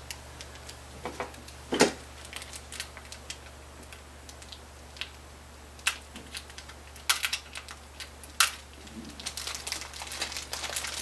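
A small clear plastic tuner bag crinkling in short, sharp crackles and clicks, spaced out a second or more apart, as the old guitar tuners are packed into it.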